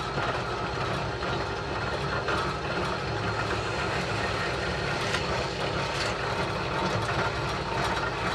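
Bench drill press motor running steadily while centre holes are drilled through thin 3 mm birch plywood strips held in a jig, with a few light clicks as the strips are handled.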